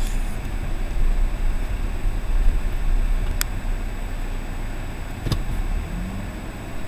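Car moving slowly, heard from inside the cabin: a steady low rumble of engine and road noise. Two sharp clicks come about three and a half and five seconds in.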